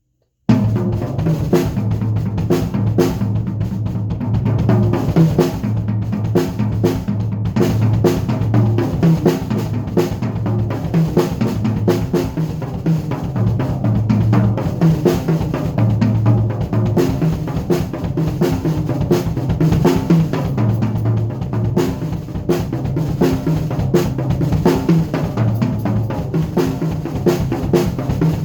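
Drum kit played in a steady groove of kick, snare, hi-hat and cymbals over music with a bass line, starting abruptly about half a second in.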